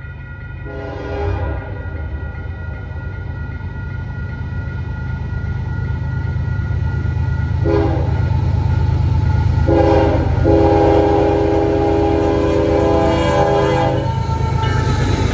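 Union Pacific freight locomotive sounding its multi-chime air horn for the grade crossing: a short blast about a second in, two more short blasts near the middle, then one long blast held for several seconds. Under it, the low rumble of the approaching diesel locomotives grows louder, and the crossing signal's bell rings steadily.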